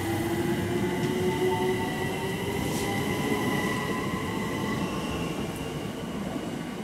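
London Overground Class 378 Electrostar electric train pulling out and accelerating away, its traction motors whining in several tones that slowly rise in pitch over the rumble of wheels on rail. The sound fades as the train leaves.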